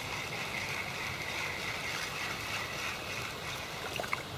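Steady hiss of wind and water at a riverbank, with a faint steady high drone; near the end, a few small splashes as a hooked fish is drawn out at the float.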